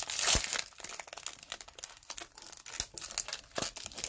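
Foil wrapper of a Score football trading-card pack being torn open and crinkled: a louder rip in the first half-second, then a scatter of short crackles as the wrapper is handled.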